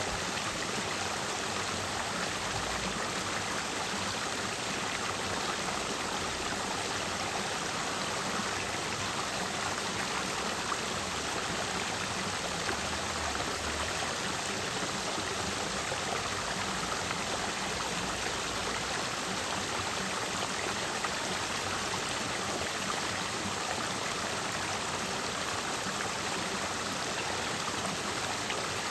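Clear mountain stream flowing and splashing over rocks, a steady even rush of water.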